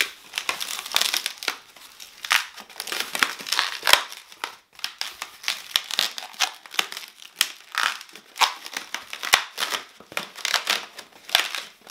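Black 260 latex modelling balloon being twisted into small loops, the latex rubbing and squeaking against itself in quick, irregular scratchy strokes.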